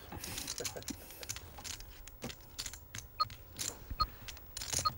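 Poker chips clicking irregularly as they are handled and riffled at the table. From about three seconds in, a short electronic beep sounds roughly once a second.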